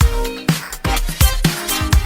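Upbeat electronic dance music with a steady drum beat, about two beats a second, and synth notes.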